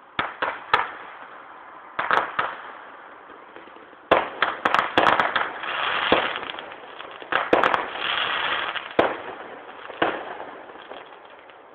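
Distant fireworks display heard through a mobile phone's microphone. A few scattered bangs are followed, about four seconds in, by a dense run of bangs and crackle that trails off near the end.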